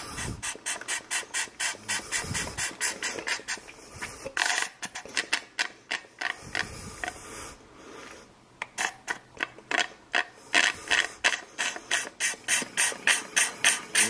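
Rapid, rhythmic sucking on a clear plastic tube fitted over a Keurig coffee maker's entrance needle, about four short pulls a second in runs with a pause in the middle, to draw coffee grounds out of the clogged needle.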